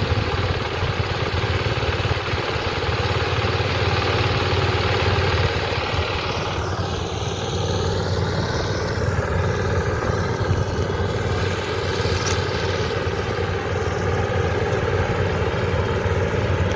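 Engine of a rice-harvesting machine running steadily at a constant speed, a continuous low drone.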